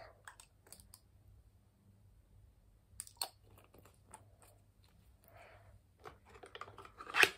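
Quiet, scattered clicks and taps of a glass dropper bottle being handled as its dropper cap is put back and screwed on, with a louder click near the end.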